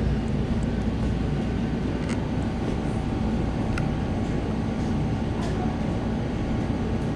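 Steady low rumble of shop room noise with a faint constant hum and a few light clicks.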